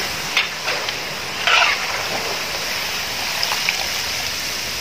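Frozen par-fried potato fries deep-frying in hot oil: a steady sizzle with a few sharper crackles, the loudest about a second and a half in.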